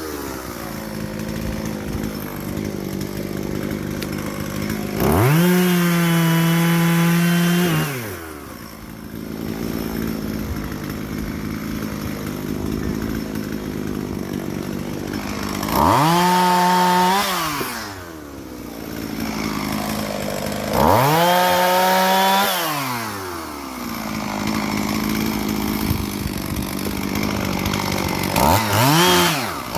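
Two-stroke chainsaw idling, opened up to full throttle four times, each held for one to three seconds before falling back to idle.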